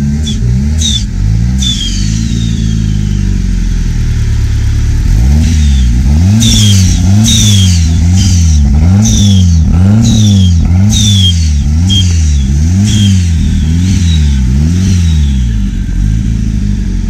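Turbocharged car engine revved in quick, rhythmic blips, about one and a half a second, stronger from about five seconds in. Each blip is followed by a high falling turbo whistle.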